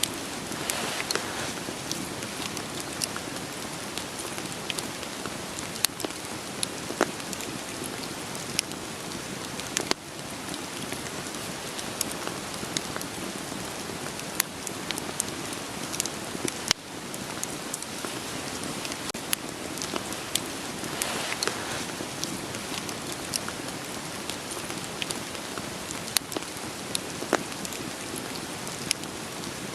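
Steady rain falling, mixed with a crackling wood fire that gives frequent, irregular sharp pops.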